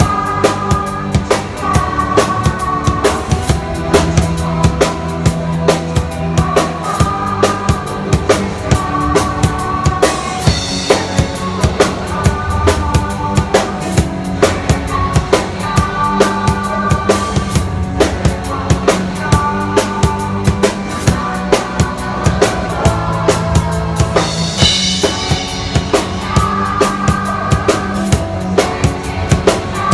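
Band music with a drum kit playing a steady beat under a low bass line and a higher melody.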